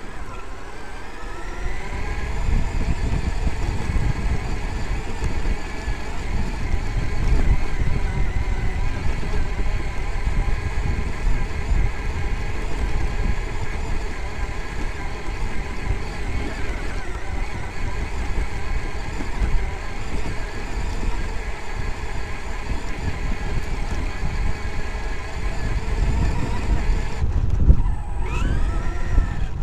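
Traxxas X-Maxx electric RC monster truck's brushless motor and drivetrain whining at speed, picked up on board, over the rumble of the chassis and tyres on rough grass. The whine rises as it accelerates at the start, and near the end it cuts off briefly and climbs again as the throttle comes back.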